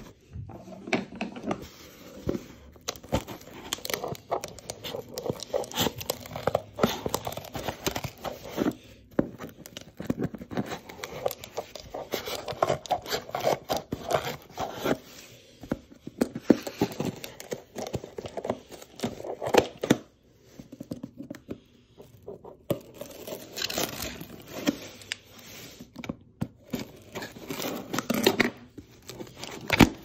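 Scissors cutting and sawing through packing tape and cardboard on a small shipping box, with the cardboard tearing and scraping: a busy run of irregular snips, rasps and rips, with a short lull a little after two-thirds of the way through.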